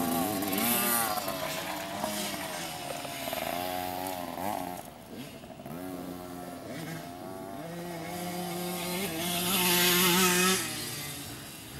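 Small minicross motorcycle engine revving up and down as the bike rides a dirt motocross track, pitch rising and falling with the throttle. It gets loudest about nine to ten seconds in, then drops away.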